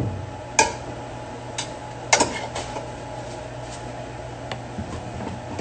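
Scattered clinks and knocks of dishes and utensils being handled, a few separate taps with the loudest about two seconds in, over a steady low hum.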